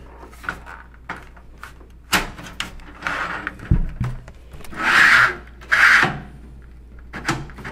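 Plastic front panel of a computer case being worked loose by hand: scattered clicks and knocks, a dull thump near the middle, and two loud scraping rubs, each about half a second long, a little past the middle.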